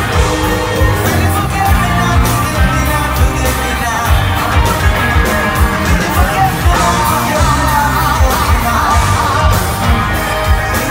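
Live rock band playing electric guitars, bass, keyboards and drums with a steady beat, with singing over it.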